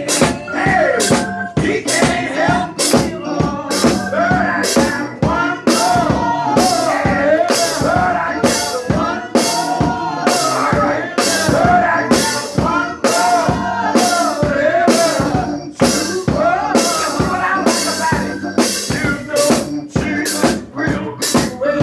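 Live gospel music: a male lead singer singing into a microphone over a steady beat of drums and hand clapping.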